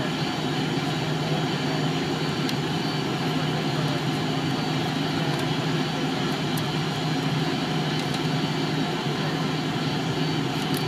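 Steady hum of an MD-82's rear-mounted Pratt & Whitney JT8D turbofans heard inside the cabin as the airliner taxis at low power, with a constant low drone and a few faint rattling clicks.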